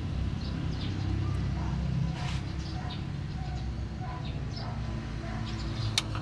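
Steady low machine hum, with short bird chirps scattered over it and one sharp click near the end.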